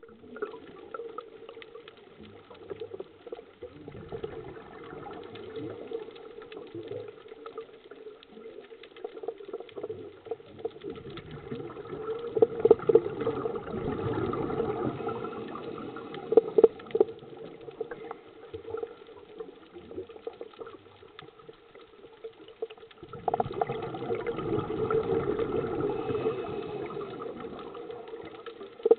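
Underwater sound of a scuba diver's exhaled bubbles: long gurgling swells, twice, over a steady bed of faint crackling and clicks.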